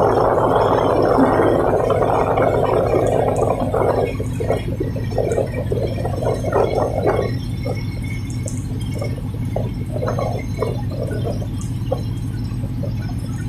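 Tugboat's diesel engines running with a steady low hum. A rough, dense noise lies over it for the first seven seconds, then breaks into short scattered spurts.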